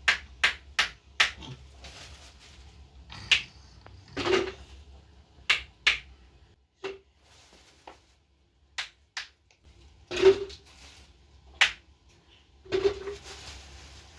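A dozen or so sharp clicks and knocks at irregular intervals, some with a short dull thud, and quiet gaps between them.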